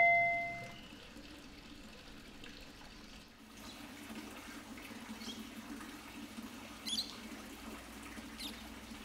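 A two-tone ding-dong doorbell's second, lower chime ringing out and fading away over the first second. Then only a faint steady hiss with a few soft ticks.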